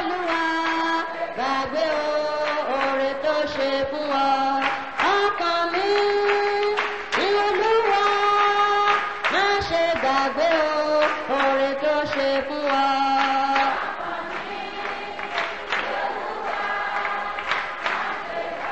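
A choir singing with held notes that slide from one pitch to the next; the singing gets softer about three-quarters of the way through.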